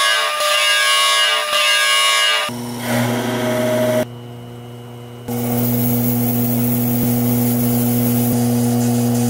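Small metal lathe running with a steady motor hum as a brass part is turned. A brighter, hissy cutting sound of the tool on the brass fills the first couple of seconds, then the steady hum continues.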